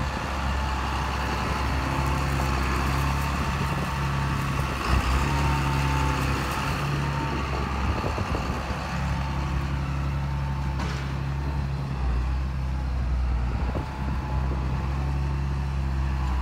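A farm vehicle's engine running steadily, its note shifting a couple of times.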